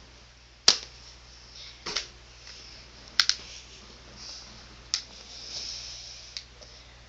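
Five scattered sharp clicks and taps, the first the loudest, with faint rustling between them: handling noise from someone moving about and touching things right next to the microphone.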